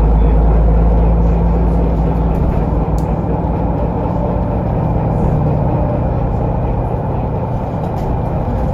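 Cabin noise of a Solaris Urbino 18 articulated city bus under way: steady engine and road noise with a deep low rumble that eases slightly after the first second. Two light clicks come through, one about three seconds in and one near the end.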